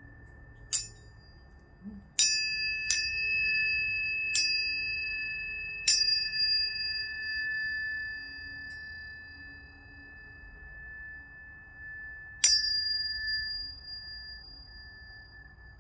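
Planetary tuning forks struck one after another, six strikes in all, with a longer pause before the last. Their clear high tones ring on, overlapping, and fade slowly.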